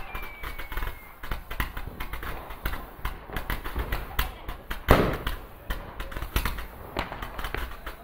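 Fireworks display: a rapid run of pops and crackles from bursting shells, with one loud bang about five seconds in and a whistle falling in pitch during the first second. People's voices are heard behind.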